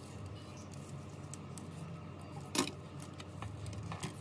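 Small sharp clicks and taps of hand tools and parts being handled while a phone is taken apart or reassembled, the loudest about two and a half seconds in, over a steady low hum.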